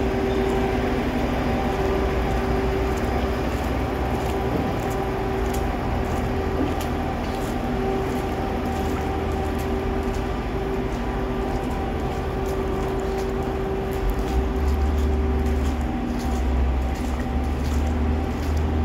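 Motor vehicle engine running steadily, a constant drone over a low rumble that grows stronger about three-quarters of the way through, with faint scattered clicks.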